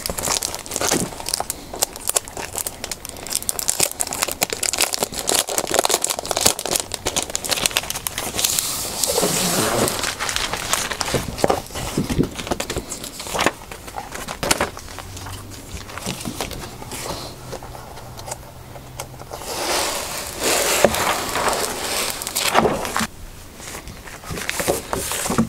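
A clear plastic cutting mat and sheets of glitter heat transfer vinyl being handled and laid down on a plastic-covered table: irregular crinkling and crackling of stiff plastic with scattered clicks.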